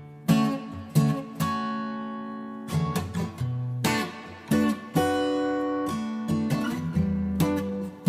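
Background music: an acoustic guitar strummed and plucked in a light, bouncy tune, each chord ringing on after it is struck.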